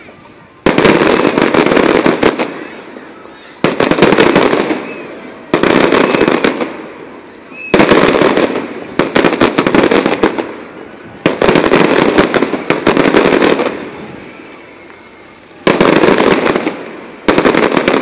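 Fireworks going off in a series of about seven loud salvos, each starting suddenly as a burst of dense rapid crackling and dying away over a second or two.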